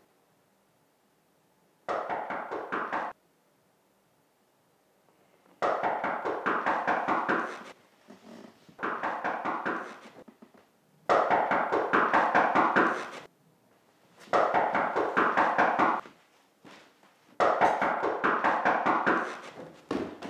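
Rapid, insistent knocking on a door, in six loud bursts of one to two seconds each with short pauses between them.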